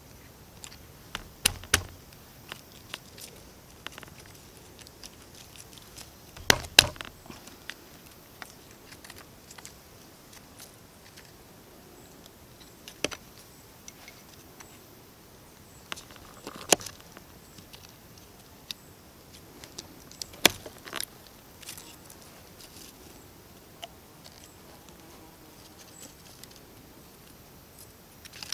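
A knife blade cutting small blocks off a piece of wood and the pieces being handled on a log: scattered sharp clicks and snaps, some in quick pairs, a few seconds apart, over a faint steady hiss.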